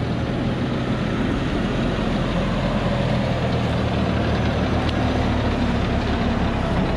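Diesel engine of a Thaco Forland dump truck running under load as the truck climbs a muddy dirt slope: a steady low drone that grows slightly louder as the truck comes close.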